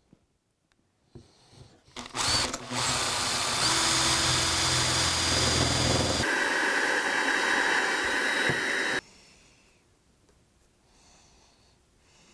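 Power drill boring a 10 mm hole with a spade bit through foam trackbed into a wooden baseboard, for a point motor's actuating arm. It starts about two seconds in and runs steadily for some seven seconds, its tone shifting higher about six seconds in, then stops suddenly.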